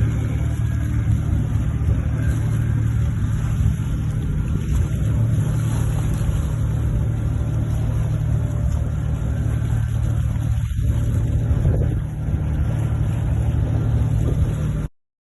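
Sea waves breaking and washing in as a steady low rumble, which cuts off suddenly near the end.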